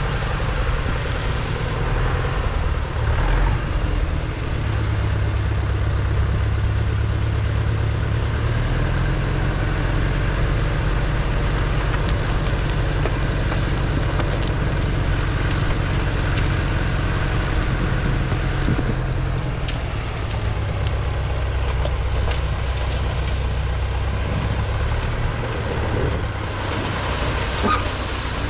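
Tractor engine running steadily with a low, even engine note.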